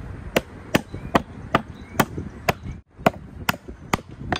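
Claw hammer striking a chainsaw-carved wooden birdhouse in quick, evenly spaced sharp blows, about ten of them at roughly two and a half a second, knocking out waste wood to hollow the birdhouse.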